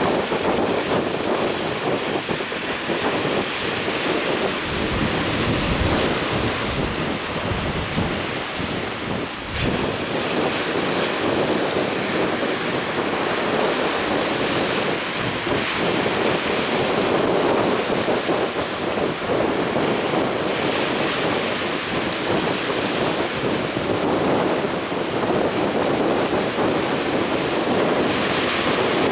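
Sea waves breaking and rushing, with strong wind gusting on the microphone; the wind buffets hardest a few seconds in and again near ten seconds.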